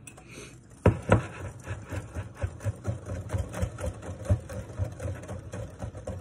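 Wire whisk beating chocolate pudding mix and milk in a glass bowl, the whisk knocking against the glass in a quick steady rhythm of about three to four strokes a second, starting about a second in.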